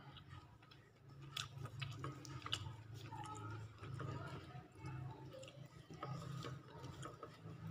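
Quiet eating sounds: scattered small clicks and smacks of chewing, with fingers picking at a sticky cassava snack topped with grated coconut on a brown paper wrapper, over a low steady hum.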